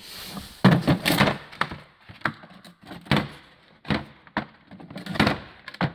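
Irregular clatter of sharp clicks and knocks as tool gear, likely the inspection camera and its case, is handled and rummaged, with a loud knock about a second in and another near the end.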